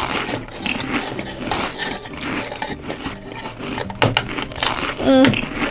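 Small clicks, knocks and rustling of toy pieces being handled, with one sharper knock about four seconds in.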